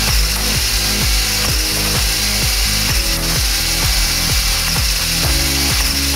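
Background electronic music with a fast, steady beat of falling bass thuds and a gritty hiss over held chords.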